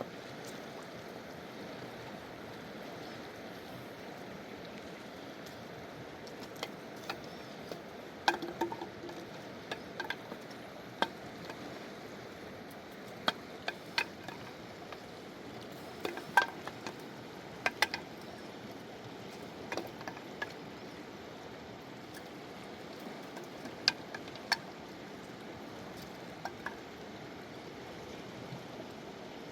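Steady rush of a fast-flowing mountain river, with scattered sharp clicks and knocks from about eight seconds in.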